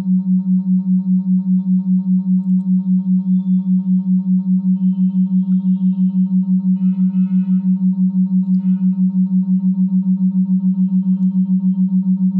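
Smartphone speaker-cleaner app playing a low, steady tone at full volume, pulsing rapidly several times a second, meant to vibrate trapped water out of the phone's speaker.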